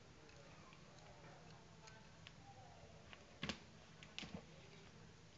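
Near silence with faint scattered ticks, and two sharper clicks about three and a half and a bit over four seconds in.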